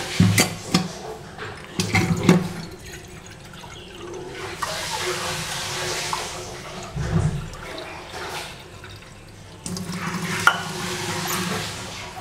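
Kitchen tap running into a stainless steel sink while dishes are rinsed, with several sharp clinks and knocks of metal pots and utensils against the sink.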